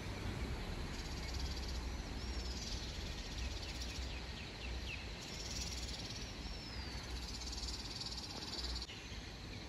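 Outdoor hillside town ambience: a steady hiss and low rumble, with a few short gliding bird whistles and chirps in the first half and a high insect-like buzz coming and going later on.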